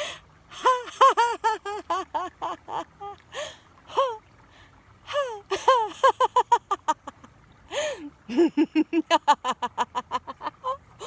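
A woman laughing on purpose, loud and exaggerated, in rapid runs of high-pitched 'ha-ha-ha' syllables broken by sharp gasping in-breaths. Pauses come about three seconds and seven seconds in.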